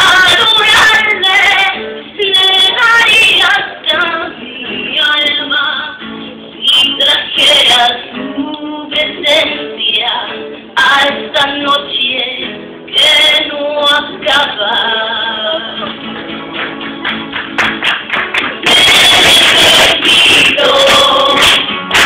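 Live singing, with a woman's voice prominent, to acoustic guitar accompaniment. About three-quarters of the way in, the audience breaks into loud cheering over the music.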